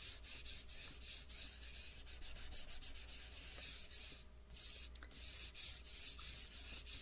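A hand rubbing soft chalk pastel dust into paper in quick back-and-forth strokes, a dry rhythmic swishing, blending layers of colour into a background tone. There is a short pause about four seconds in.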